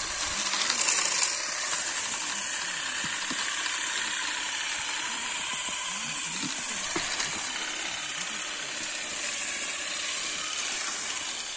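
Battery-powered electric olive harvesters running: pole-mounted combs buzz and rattle steadily through the olive branches, shaking olives and leaves down onto the harvest tarp.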